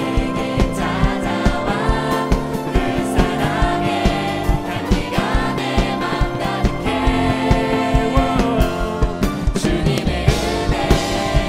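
Live contemporary worship band: several singers singing together in Korean over keyboard, bass guitar and drums with a steady beat.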